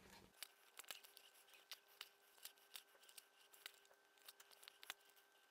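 Faint, irregular small clicks and ticks of hand saddle stitching leather: a needle pushed through pre-punched stitching holes and the thread drawn through, with the leather handled between stitches.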